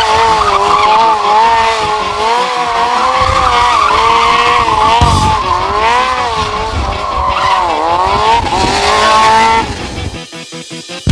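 Sportbike tyre squealing through tight leaned-over turns, a loud wavering screech that dips and rises in pitch, with the engine running underneath. It fades out about ten seconds in.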